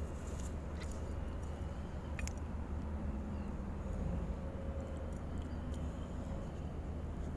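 Steady low rumble of outdoor background noise, with a few faint clicks in the first couple of seconds.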